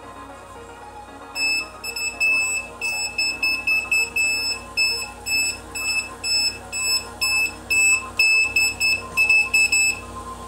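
Non-contact voltage detector pen beeping its voltage alarm: short, high beeps at an uneven rate of about three a second, starting about a second and a half in and stopping near the end. The tip is passed along a mains cable, and the alarm signals that the pen senses AC voltage. Electronic background music plays underneath.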